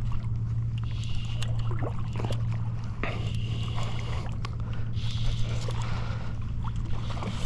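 Fly reel drag buzzing in spurts as a big striped bass pulls line off against a tight drag, over a steady low hum.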